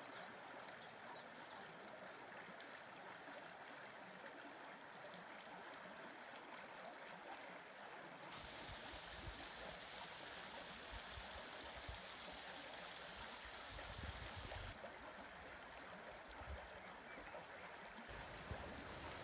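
Small waterfall trickling and splashing down a rock face: a steady rush of water that comes in suddenly about eight seconds in and drops back about six seconds later, over a fainter steady hiss before and after.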